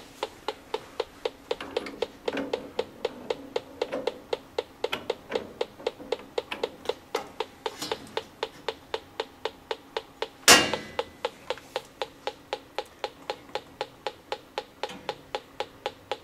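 Handheld combustible gas leak detector ticking at a steady rate of about four clicks a second as its probe is moved over the gas fittings. The rate never speeds up, meaning no gas leak is found. A single louder knock comes about ten seconds in.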